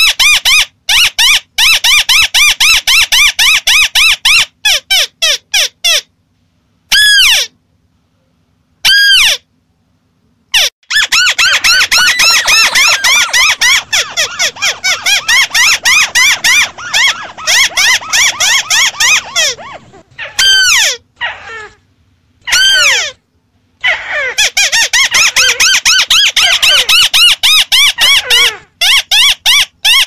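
White-browed crake calls played as a bird-lure recording: fast runs of harsh chattering notes, several a second, broken by a few short pauses.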